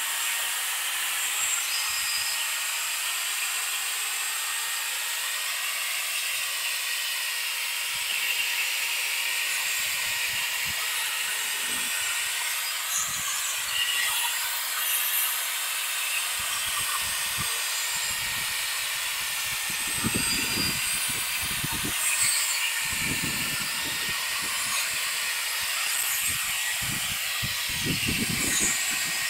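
Cordless drill running with a steady whine, spinning a 3M Trizact 3000-grit pad to wet-sand a plastic headlight lens. The motor's pitch wavers slightly, and a few low knocks come in the second half.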